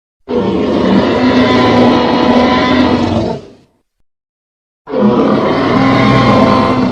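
Tyrannosaurus rex roar sound effect, played twice: a long, deep roar of about three seconds, a second of silence, then a second roar of similar length.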